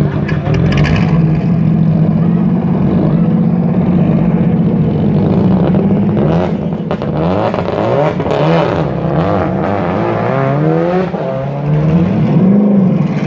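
Racing engine of a silver Mercedes-Benz 190E race car at a hillclimb start line, idling with a steady low note. From about six seconds in it is blipped again and again, the pitch rising and falling with each rev.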